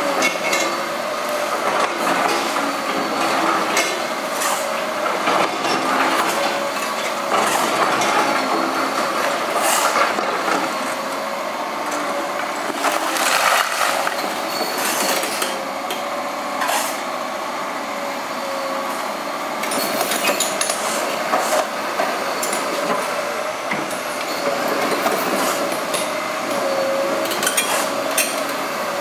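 Liebherr hydraulic crawler excavators working a pile of demolition rubble: engines and hydraulics running under a wavering whine, with repeated clanks and knocks of the steel bucket and tracks against broken brick and concrete.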